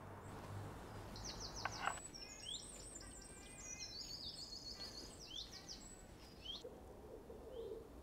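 Small songbirds singing: quick, high trilled phrases repeated from about a second in until past the middle, then a lower, softer wavering call near the end.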